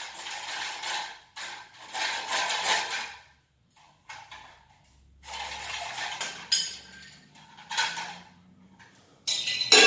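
Hand-sawing a toilet cistern fitting to its marked length: a few irregular rasping saw strokes with short pauses between them.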